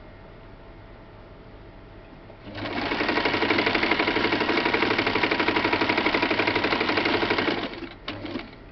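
Electric domestic sewing machine stitching a straight seam through folded fabric. It starts about two and a half seconds in and runs a rapid, even stream of stitches for about five seconds, stops, then adds a short burst of a few more stitches near the end.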